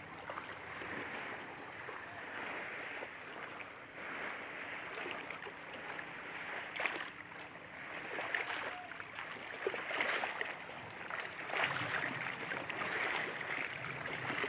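Waves washing against the shore, a steady rushing noise that swells and eases, with a few faint knocks.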